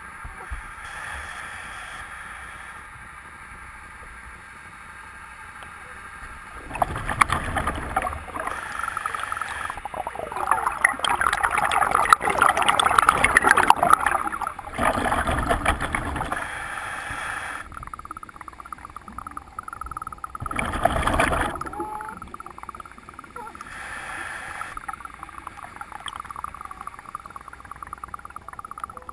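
A scuba diver breathing underwater through a regulator: quieter stretches of breathing broken by gurgling rushes of exhaled bubbles, several times, the longest a few seconds long about ten seconds in.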